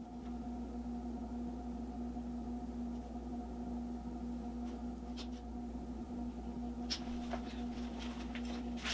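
Steady low hum of room tone, with a few faint clicks and rustles in the second half.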